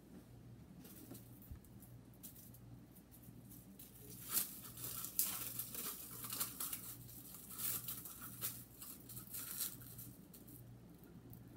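Kitchen handling noises from someone working at the counter: scattered light clicks and rustling, the sharpest about four and five seconds in, over a steady low hum.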